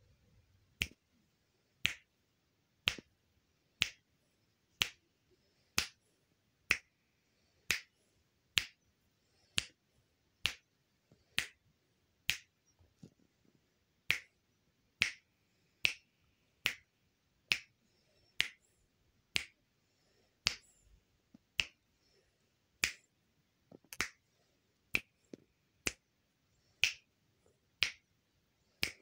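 A person snapping fingers over and over, one sharp snap about every second at a steady pace.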